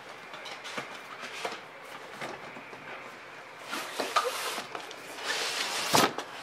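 Cardboard packaging being handled: scattered taps and clicks, then cardboard rubbing and sliding as an inner box is drawn out of the outer box, with a sharp knock near the end.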